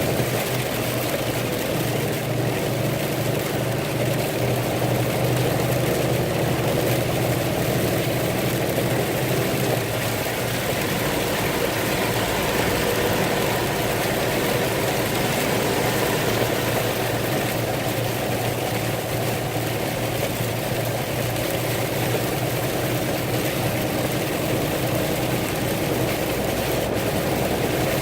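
Steady hum of a car engine heard from inside the cabin, under a constant hiss of rain and road noise.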